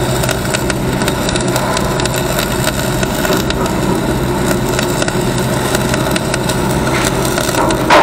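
Wire-feed welding arc crackling and sizzling steadily over a low steady hum.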